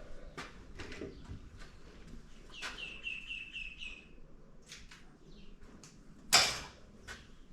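Small clicks and knocks of hand work on the rear brakes, with a bird chirping a quick run of about six high notes partway through and a single loud clank near the end.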